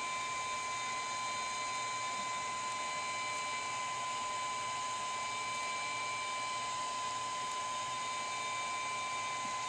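A steady high-pitched whine over an even hiss, from a small motor or electrical equipment running.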